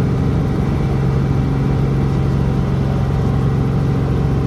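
Helicopter engine and rotor running steadily, heard from inside the cabin: a loud, even low hum with rapid pulsing.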